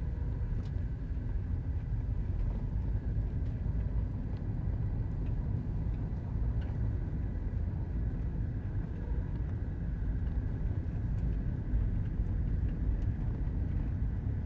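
A Jeep being driven, heard from inside the cabin: a steady low rumble of engine and tyres, with a few faint ticks scattered through it.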